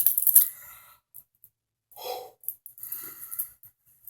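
Butterfly knife handles clicking and clattering for the first half second, then a couple of soft breaths.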